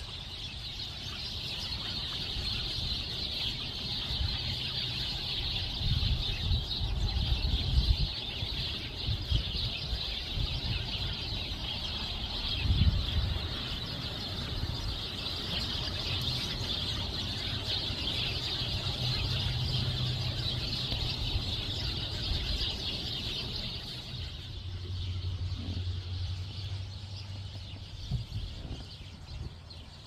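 A chorus of wild birds calling around the feeders, a dense high-pitched chatter that fades out about three-quarters of the way through, with low rumbles underneath.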